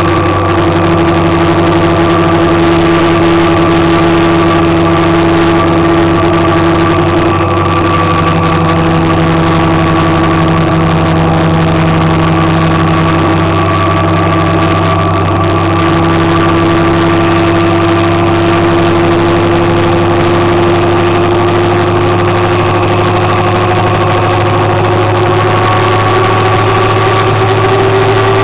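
Motor scooter engine running steadily while riding along at road speed, its pitch climbing a little over the last few seconds.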